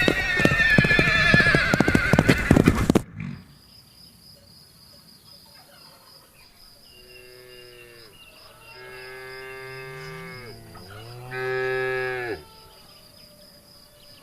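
Horse hooves clip-clopping with a whinny, cut off abruptly about three seconds in. Then cows mooing: a few long, drawn-out moos, the loudest near the end.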